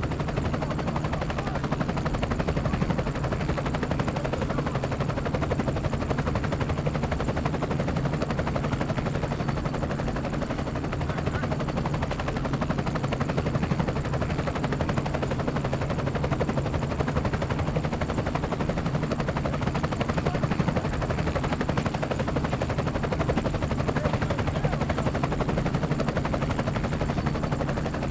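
Helicopter running steadily in flight, engine and rotor heard close up with a fast, even rotor chop.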